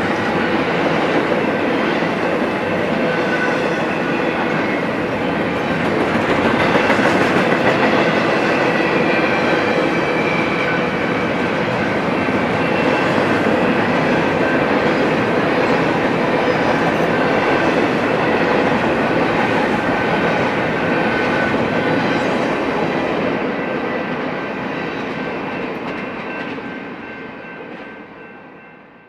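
Double-stack intermodal container well cars of a freight train rolling past on the rails, a steady heavy rumble of steel wheels on track with faint thin high squealing tones over it. The noise dies away over the last few seconds as the train moves off.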